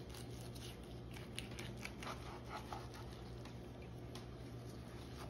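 Faint crackling and scraping of a long slicing knife sawing through a smoked brisket's crusty bark, made up of many small ticks, over a low steady hum.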